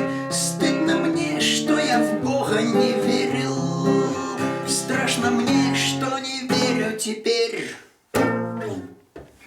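Acoustic guitar strumming chords as the song's instrumental ending. It breaks off briefly about eight seconds in, then one last strum rings out and fades.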